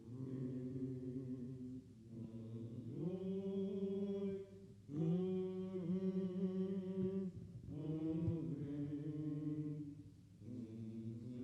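Men's voices singing a slow fraternity hymn a cappella: five long held chords with short breaks between them.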